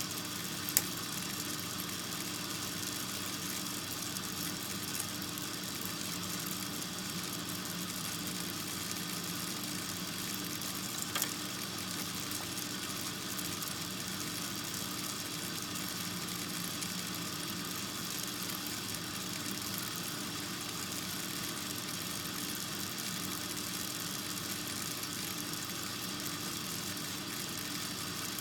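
A steady mechanical hum with an even hiss, broken by a sharp click about a second in and a smaller click about eleven seconds in.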